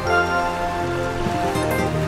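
Background music: held notes and chords changing every half second or so, over a steady hiss.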